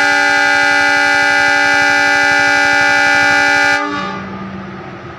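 Horn of the ZDM 720 narrow-gauge diesel locomotive sounding one long, steady blast that cuts off about four seconds in, leaving the diesel engine idling.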